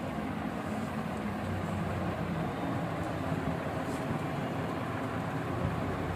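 Steady low background rumble with no clear events.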